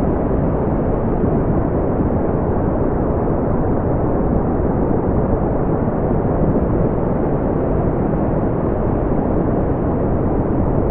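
Brown noise: a steady, deep, even rumbling hiss, strongest in the low range and unchanging throughout.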